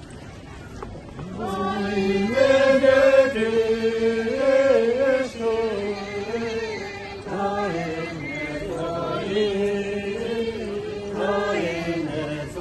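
Voices chanting a Tibetan dance song in unison, starting about a second in, with long held notes that step up and down in pitch.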